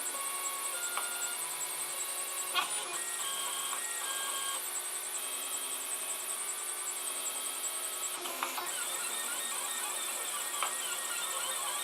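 Protomaker Black Sprint FDM 3D printer printing PLA: its stepper motors whine in short steady tones that jump from pitch to pitch as the print head moves, over a steady high hiss. Two sharp clicks come about a quarter and three-quarters of the way through, and the movement sounds get busier and more jittery near the end.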